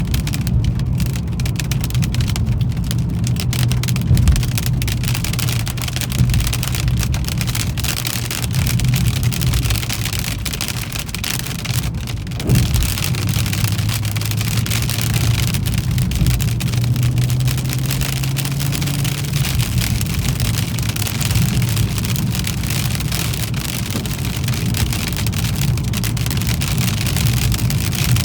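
Car driving on a wet, wintry road: steady low engine hum and tyre noise under a dense crackling patter of light hail on the car.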